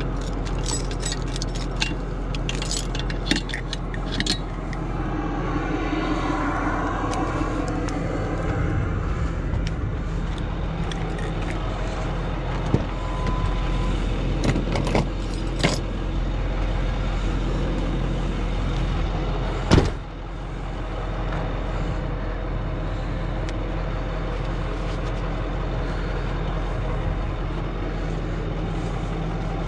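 Tow truck engine idling steadily, with metallic clinks and rattles in the first few seconds and one hard bang about two-thirds of the way through.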